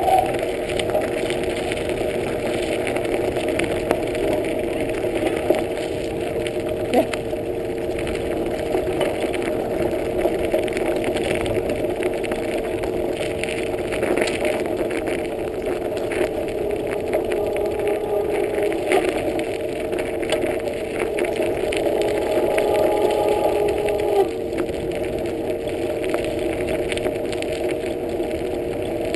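Bicycle rolling along a gravel trail: tyres running over gravel and leaves with scattered small rattles and clicks, over a steady hum.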